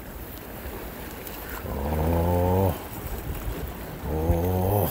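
A man's voice making two drawn-out, wordless groans, about two seconds in and again near the end, over steady wind and sea noise.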